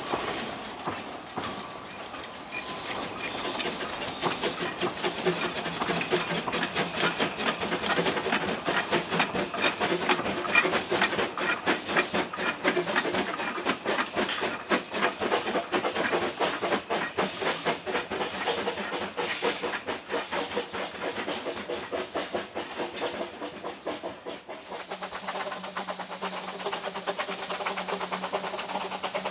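A train hauled by two small narrow-gauge Quarry Hunslet steam locomotives running past, with a quick, regular chuffing of exhaust beats and the clatter of the coach wheels on the rails. Near the end the rhythm gives way to a steadier hiss with a low hum.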